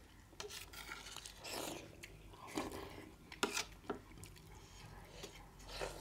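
A metal spoon scraping and clinking on a stainless steel plate while fingers mix rice, soft rubbing with a few short sharp clinks spread through.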